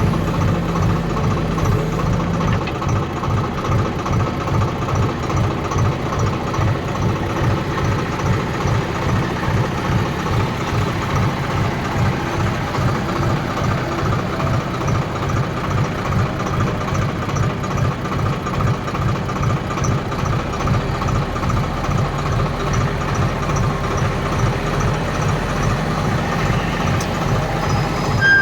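Diesel engine running steadily, with an even pulsing beat.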